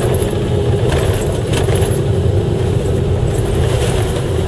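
Vehicle engine running steadily, heard from inside the cabin while driving over a rough, rutted snowy track, with short rattles and knocks from the bumpy ride.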